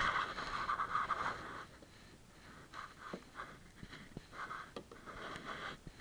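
Close rustling and scraping of clothing against the camera and its microphone as the angler shifts, loudest in the first second and a half and again near the end, with a few light knocks in between.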